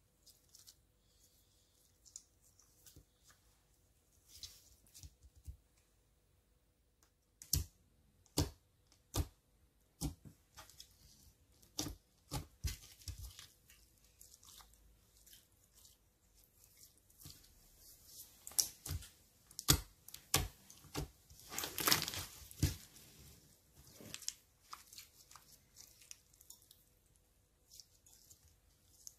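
Glossy slime being stretched out between two hands, making sticky crackles and sharp pops. It is faint at first, then comes a long run of loud separate pops through the middle, thinning back to light crackling near the end.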